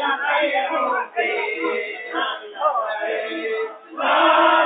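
A group of men singing an Islamic nasyid together in chorus, many voices at once, growing louder near the end.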